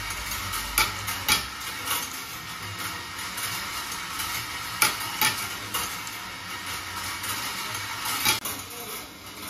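Glass marbles rolling along the steel-wire rails of a rolling ball sculpture: a steady rattling hiss, broken by several sharp clicks.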